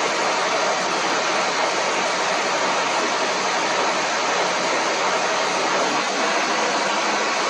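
John Deere 9600 combine running steadily while harvesting, a dense even mechanical noise; a low hum underneath drops away about six seconds in.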